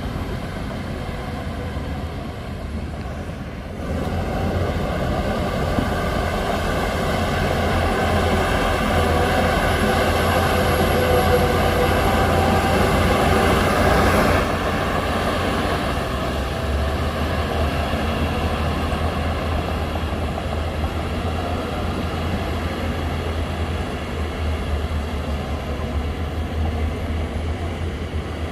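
Heavy diesel engine of earthmoving machinery running under load with a steady low drone. It grows louder about four seconds in, is loudest for several seconds, then eases back a little at about the halfway point.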